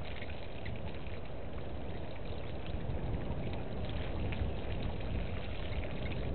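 Outdoor bush ambience: a steady rushing noise with a low rumble, typical of wind on the microphone, with small high chirps scattered through it.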